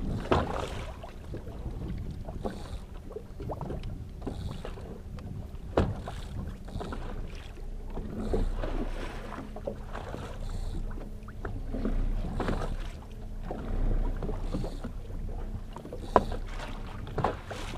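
Fishing boat's motor running steadily, with wind on the microphone and a few sharp knocks.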